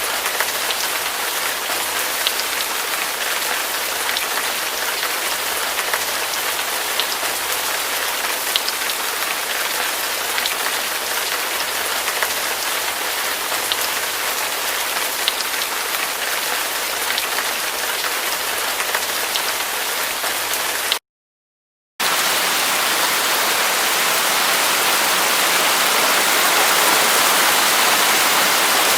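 Heavy rain falling steadily, with individual drops ticking through the hiss. About two-thirds of the way in, it cuts to a second of dead silence and resumes as a denser, smoother rain hiss.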